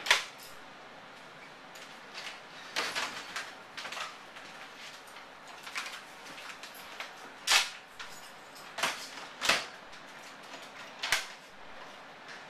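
Front door being opened and shut, with a scattered series of sharp clicks and knocks from the knob, latch and lock; the loudest knocks come about halfway through and again a couple of seconds later.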